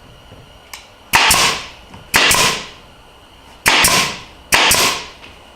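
Pneumatic brad nailer firing four times, each a sharp crack followed by a short hiss of exhaust air, as pine strips are tacked in place.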